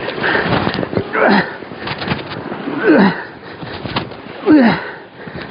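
A man's strained, grunting breaths, a falling groan about every second and a half, from the effort of pumping and reeling against a large hooked fish on a light-jigging rod.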